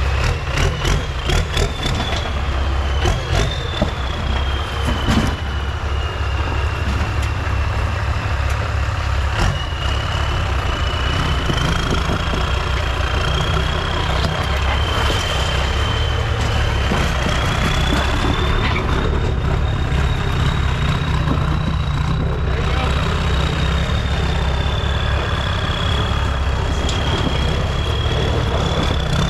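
Cummins diesel engine running steadily, with a high thin whine that drifts slowly up and down in pitch over it. A quick run of sharp clicks and knocks comes in the first few seconds.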